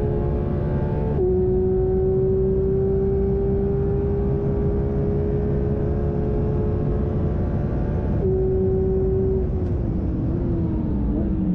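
Porsche 911 GT3 RS's 4.0-litre flat-six at high revs, pulling down a long straight with wind and road noise: a steady engine note that climbs slowly and drops sharply at upshifts about a second in and about eight seconds in. Near the end the car brakes hard and the note falls in steps as it downshifts.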